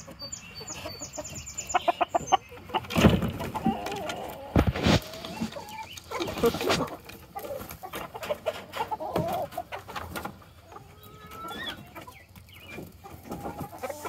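A flock of backyard chickens clucking as they come out of their coop. Several sharp knocks sound between about two and seven seconds in.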